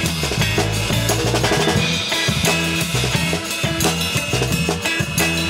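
A Gretsch drum kit played in a steady groove, with kick, snare and cymbal hits, over a backing music track that carries a bass line.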